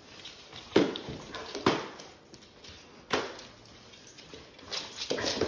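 A dog scrambling on a hardwood floor as it goes after a Swiffer sweeper: a few sharp clattering knocks of claws and the sweeper head, the first three about a second apart and a quicker run of them near the end.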